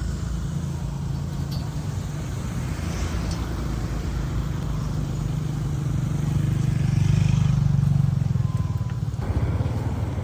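A motor vehicle engine running steadily, growing louder about six seconds in and then dropping off sharply about nine seconds in.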